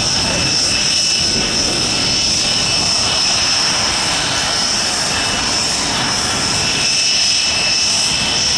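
Panavia Tornado jet idling: a steady high-pitched turbine whine over a constant rushing engine noise.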